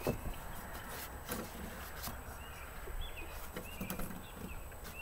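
Outdoor background with a steady low rumble, a few light knocks and clicks from the wooden climbing frame and its rings as they are handled, and short high bird chirps now and then.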